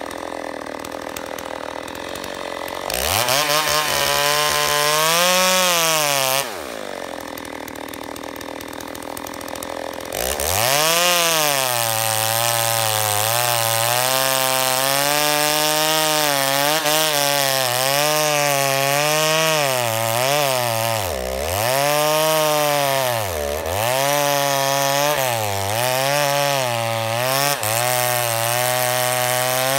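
Stihl MS 290 two-stroke chainsaw cutting fir. It is low and steady at first, revs up briefly about three seconds in and drops back, then from about ten seconds in runs at full throttle through the log, its pitch dipping repeatedly as the chain bites into the wood.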